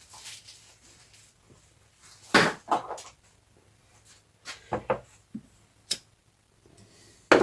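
Scattered knocks and clicks of tools and engine parts being handled on a workbench, about half a dozen short hits with pauses between them.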